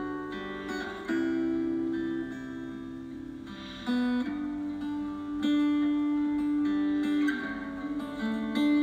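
Background music: an acoustic guitar playing slow, plucked notes that ring on.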